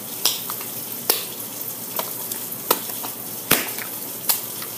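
Sticky clear-glue slime being squeezed and pulled apart by hand, squelching, with about six sharp pops or smacks roughly a second apart as it tears and slaps back together.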